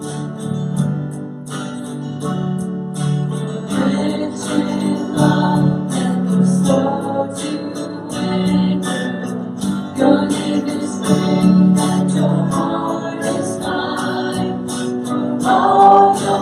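Worship band playing a song: strummed acoustic guitar with voices singing.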